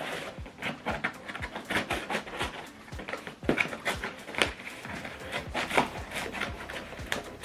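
Packaging being handled and opened: a string of irregular clicks, taps and rustles, with sharper knocks about three and a half, four and a half and six seconds in, over a row of low thumps.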